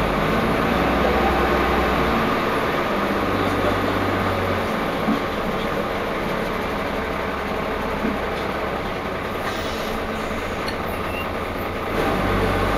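Inside a Wright Cadet single-decker bus on the move: the diesel engine drones along under steady road and body noise, with a couple of light knocks. The low engine note drops away about 2 s in, briefly returns, and builds again near the end as the engine comes back under load.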